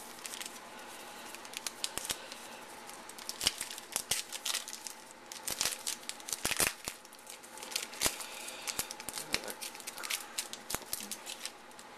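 Wrapper of a trading card pack being torn open and crinkled by hand: irregular sharp crackles and crinkles throughout.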